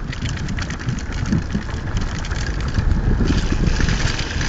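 Wheels and frame of a dog-pulled dryland cart rumbling and rattling steadily over a bumpy forest trail.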